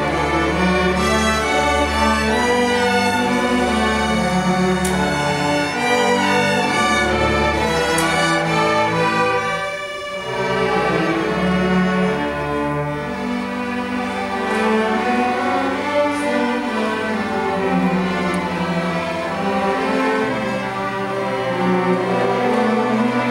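A string orchestra of violins and cellos playing a bowed piece, with a brief softer moment about ten seconds in.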